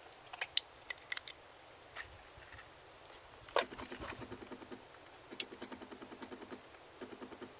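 Hands handling gear on a wooden table: scattered sharp clicks and knocks, and from the middle on, runs of soft, fast, regular ticks. No shots are fired.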